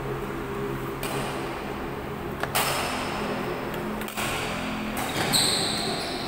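Badminton rally: rackets striking the shuttlecock with sharp smacks, about four in all, echoing in a large hall. A short high-pitched squeak comes about five seconds in.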